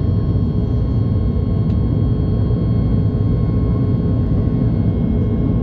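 Airliner jet engines running at takeoff power: a steady deep rumble with a faint steady whine over it.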